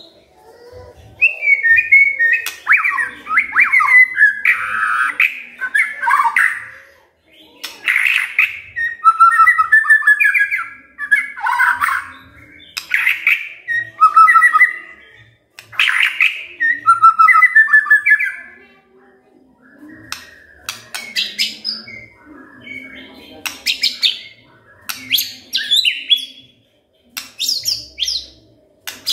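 Male white-rumped shama singing a run of loud, varied whistled phrases separated by short pauses. About two-thirds of the way through, the phrases turn quieter and higher, mixed with sharp ticking notes.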